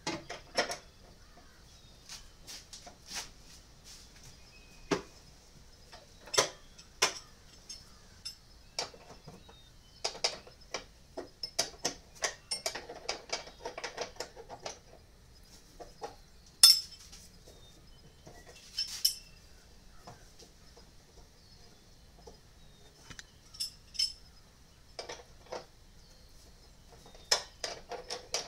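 Ratchet wrench and socket working the two bolts of the engine torque strut (engine support rod) on a Toyota Sienna: scattered metallic clicks and clinks, coming in a quick run about ten to fifteen seconds in, with one sharper clink soon after.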